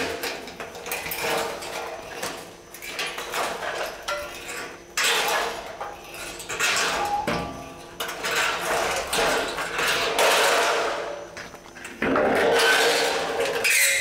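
Thin COLORBOND sheet steel being handled and bent by hand: clattering, rattling metal with a light ringing, loud bursts coming on suddenly several times.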